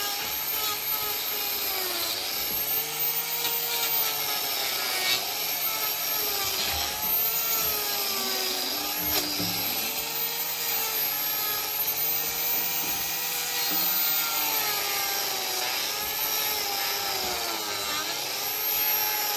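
A power tool's motor running, its pitch sagging and recovering again and again, about every one to two seconds.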